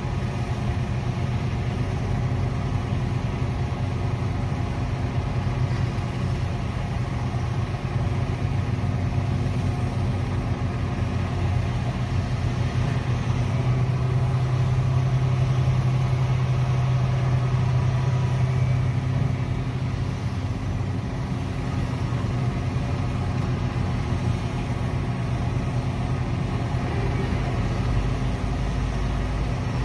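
Heavy diesel engines of a Komatsu PC1250 hydraulic excavator and an HD785 dump truck running during loading, a steady low drone. The drone grows louder for several seconds midway, as the excavator swings a bucketload of overburden over the truck and dumps it.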